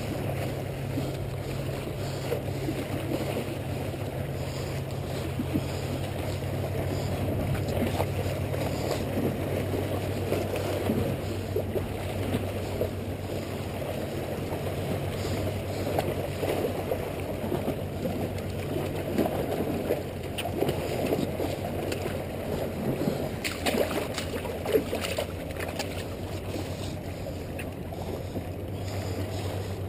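Sea water washing and splashing against the rocks of a jetty, with a steady rush of wind on the microphone. A few light clicks and knocks come about two thirds of the way through.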